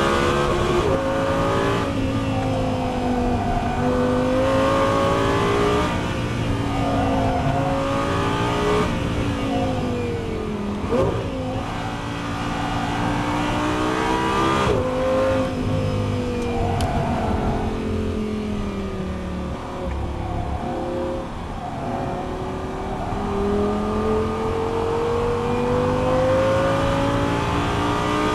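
Audi R8's V10 engine heard from inside the cabin while lapping a race track, its pitch climbing under acceleration and falling back with gear changes and lifts, with a long rising pull near the end.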